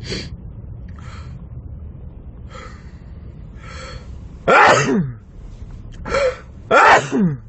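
A man sneezing in a fit: gasping in-breaths, then loud sneezes with a falling voiced 'choo', the biggest about halfway through and again near the end, inside a car cabin with a low engine hum.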